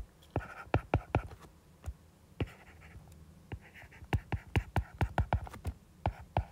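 Stylus writing on a tablet's glass screen. It makes a run of sharp, irregular taps with light scratching between them, coming faster in the second half.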